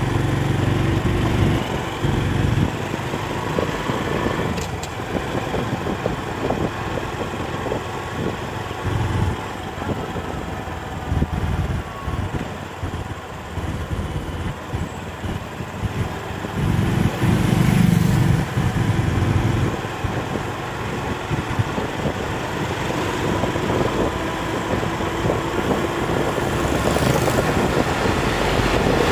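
Engine and road noise of a vehicle driving along a town street past other traffic, with a louder stretch a little past halfway.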